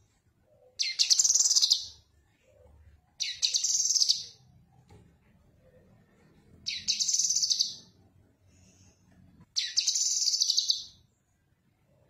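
Cucak kinoi leafbird singing: four short phrases of rapid, rippling, high chatter, each about a second long and a couple of seconds apart.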